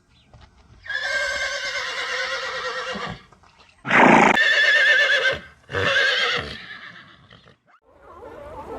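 An animal calling three times in wavering, pitched calls: a long one starting about a second in, a louder one about four seconds in, and a shorter one right after it.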